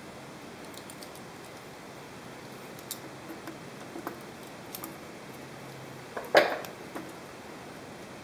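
Small metallic clicks of a hex wrench and screws at the front cover of a Bridgeport 8F power-feed control box, then one louder metal clank a little past six seconds in as the sheet-metal front cover plate comes loose and drops, under a steady hiss of camera static.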